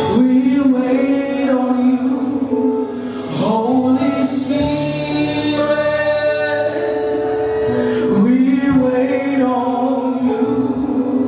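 Gospel choir singing worship music with long, held notes that slide between pitches every few seconds, recorded with a slight crackle.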